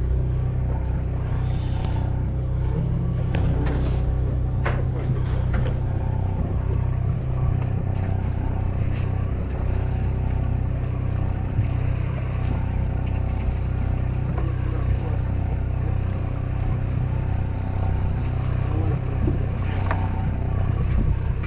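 Boat engine running steadily, a constant low drone, with a few light clicks and knocks near the start and near the end.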